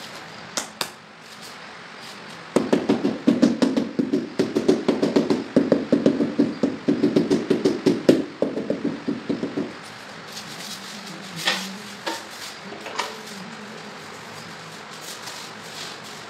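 A hand tapping and patting on ceramic wall tiles: a quick run of knocks, about four a second, starting about two and a half seconds in and lasting about seven seconds, followed by a few scattered clicks.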